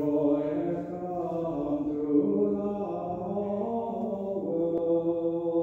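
A single voice singing a slow liturgical chant, holding long notes that step slowly from one pitch to the next.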